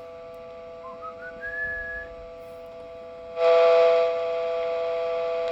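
Galaxy 99V CB radio speaker putting out steady tones with a short rising whistle about a second in. Loud receiver static hiss then comes up about three and a half seconds in and stays.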